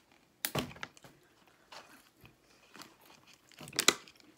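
Close-up eating sounds: a few sudden crunches and crackles of biting into McDonald's chicken nuggets and handling their packaging and sauce cups, with quiet between. The sharpest crackle comes a little before the end.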